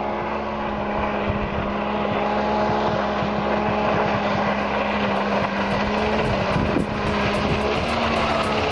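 Jet ski engine running at a steady speed, getting gradually louder as the craft comes closer, with a hiss of water spray added in the second half.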